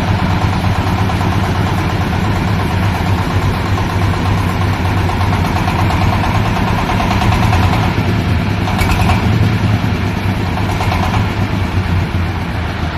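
Engine-driven corn sheller running steadily, a continuous loud engine hum with a rattling mechanical sound over it.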